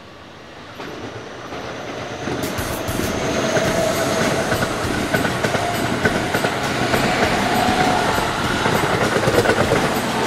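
Keihan electric train passing on the main line, growing louder over the first few seconds, with wheels clattering over rail joints and a steady whine.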